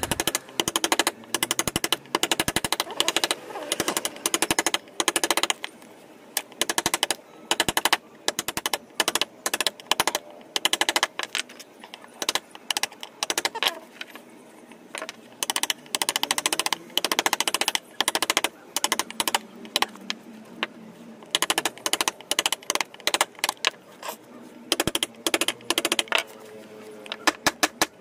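Steel claw hammer striking a carving chisel in quick runs of taps, several a second with short pauses between runs, as the chisel chops deep into teak.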